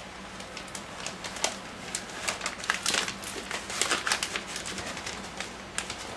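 Plastic freezer bag crinkling and rustling in irregular crackles while a thick kefir marinade is tipped into it from a plastic tub, busiest in the middle of the stretch, over a faint low hum.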